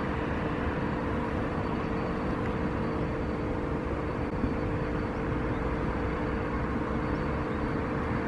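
Steady outdoor background noise with a faint continuous hum running through it; no distinct event stands out.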